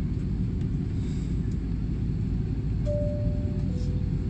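Steady low rumble with a two-note falling electronic chime about three seconds in: a higher tone, then a lower one.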